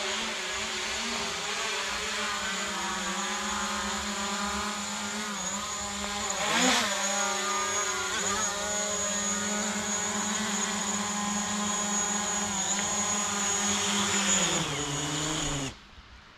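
Small quadcopter drone's propellers hovering with a steady high-pitched whine, the pitch wavering and briefly louder about six seconds in, then sliding down near the end before cutting off suddenly.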